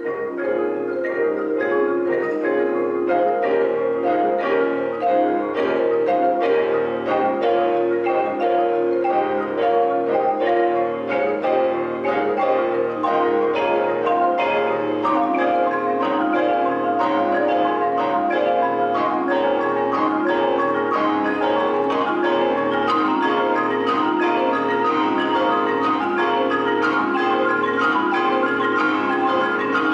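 Three marimbas played with mallets in a continuous, busy stream of struck notes, a live mallet-percussion ensemble playing without a break.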